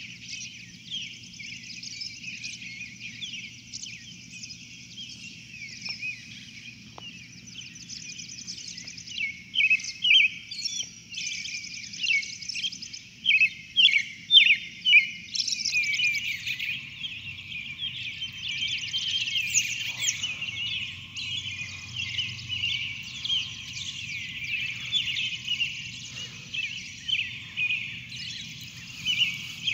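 Many songbirds singing at once in a dawn chorus, with overlapping chirps and short song phrases and a run of louder, closer calls in the middle. A steady low rumble sits underneath.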